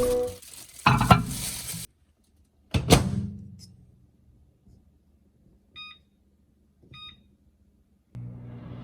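A kitchen appliance handled and started: a knock like a door shutting, then two short electronic beeps about a second apart, then a steady hum starts near the end as the machine begins to run.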